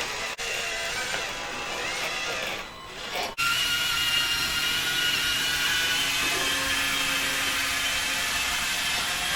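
Electric motors and drive gearing of radio-controlled construction machines whining steadily, a drill-like mechanical whine. It changes abruptly about half a second in and again about three and a half seconds in, after which it is louder and steady.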